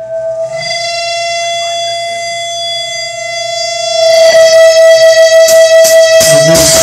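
Electric guitar feedback from an amp: one steady high note, held, that swells louder about four seconds in and pulses, with a few drum hits near the end.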